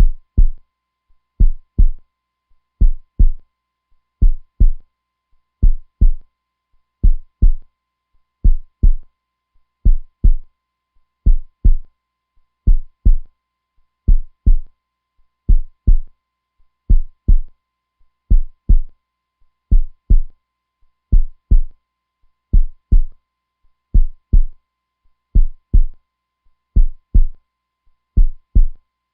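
Heartbeat sound: a slow, steady lub-dub, two low thumps close together repeating about every second and a half.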